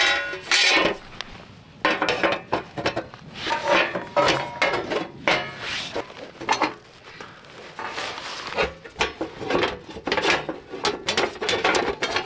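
Thin black steel plates of an IN&CAMPING folding camping fire pit clanking, clicking and scraping against each other as the grate is set on the stand and the side panels are slotted together, in quick irregular knocks.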